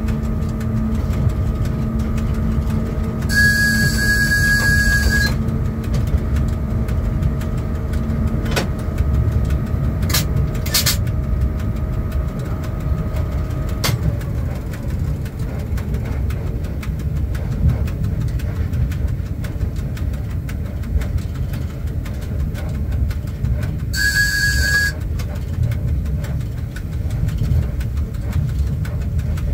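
Inside the cab of a ChS4 electric locomotive under way: a steady rumble of the running gear on the rails, with a hum that cuts off with a click about a third of the way in and a few more clicks after it. A short, high signal tone sounds twice, for about two seconds near the start and about a second near the end.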